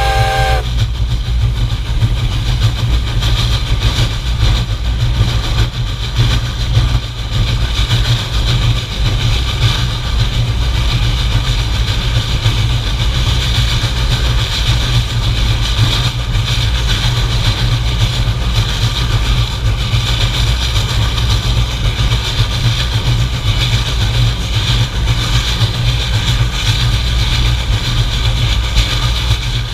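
Reading & Northern 425 steam locomotive running along the track, heard from right beside its boiler: a steady low rumble with a hiss over it. Its steam whistle cuts off about half a second in.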